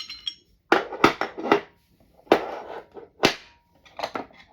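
Glock 17 parts (slide, barrel, recoil spring) being handled and set down on a table: about six sharp knocks and clatters of metal and polymer over a few seconds.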